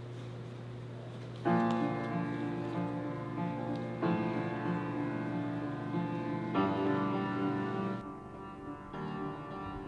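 Instrumental music: a steady low drone, joined about a second and a half in by layered held notes that shift to a new chord every two to three seconds. The drone drops out near the end.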